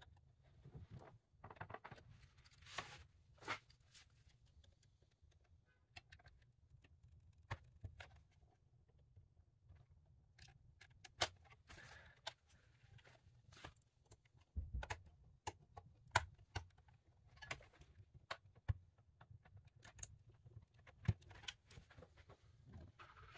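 Faint, scattered clicks and taps of hands working on a car navigation-screen unit: a circuit board and its plastic housing, with small screwdrivers and screws picked up and set down on the bench.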